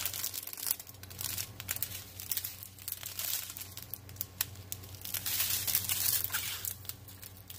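Small plastic bags of square diamond-painting drills, taped together in strips, crinkling and rustling in irregular crackles as they are handled.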